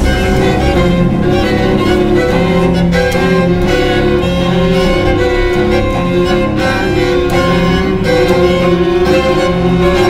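String quartet of two violins, viola and cello playing loud, dense contemporary music. Held notes overlap with sharp accented bow strokes.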